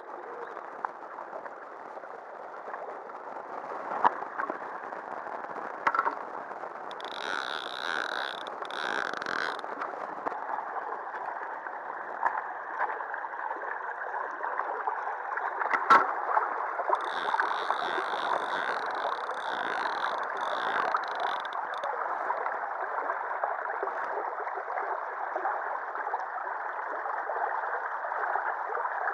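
River water rushing and gurgling over and around a concrete sill, a steady rush. A few sharp knocks cut through it, the loudest about 16 seconds in, and two stretches of a higher, rapid pulsing sound come about 7 and 17 seconds in.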